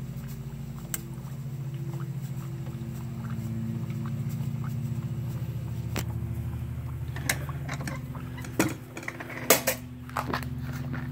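Liquid nitrogen boiling in a stainless steel bowl around a freshly immersed Line-X swatch and phone: a steady low bubbling hiss with scattered sharp ticks and crackles, a few louder ones in the second half.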